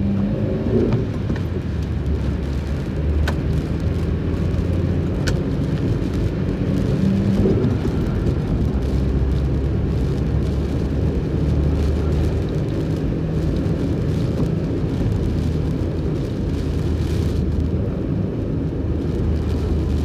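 Inside a car's cabin, driving on a rain-soaked road: a steady low rumble of tyres and engine, with a few faint ticks.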